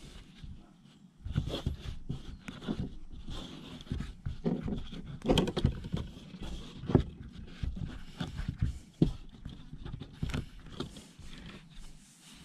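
Cheesecloth being unwrapped by hand from a dried, salt-cured bluegill on a plastic tabletop: irregular rustling of cloth, with soft knocks and taps as the fish and wrapping are handled.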